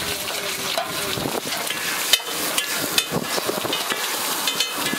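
Egg and masala mixture sizzling on a large flat griddle (tawa), with a steel spatula scraping and clanking against the hot metal as it is chopped and turned. The sharpest clanks come about two and three seconds in, and again near the end.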